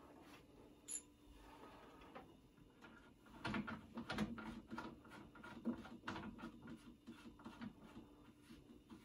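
Coax cable connectors being handled and screwed onto the rear jacks of ham radio equipment: a single click about a second in, then a run of small clicks, scrapes and cable rattles from about three and a half seconds on, over a faint steady hum.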